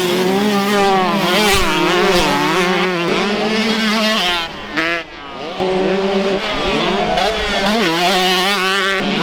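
125cc two-stroke motocross bikes racing, their engines revving hard and the pitch climbing and dropping again and again with throttle and gear changes. The sound dips briefly about halfway through, then picks up again.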